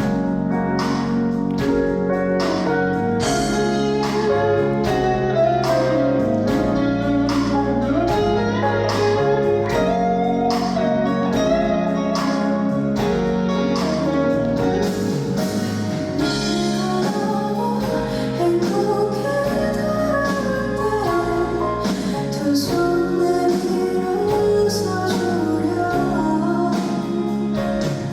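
Live band music: an instrumental passage of a ballad with guitar and a steady beat, and a voice singing over it at times.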